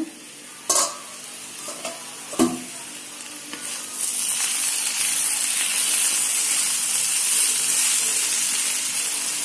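Sliced potatoes sizzling in mustard oil in a kadai while a spatula stirs and turns them. There are a couple of sharp knocks in the first few seconds, and the sizzle grows louder about four seconds in and then holds steady.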